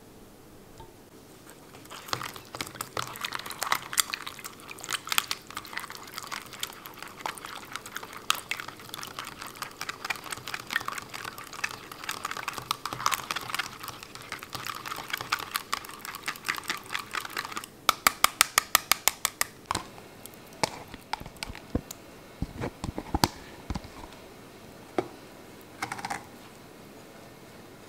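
A small metal utensil beating a wet sour cream and egg mixture in a plastic cup, clicking and scraping quickly against its sides. A run of fast, even taps follows about two-thirds through, then scattered scrapes and a few soft thumps as the wet mix goes into a glass bowl of flour.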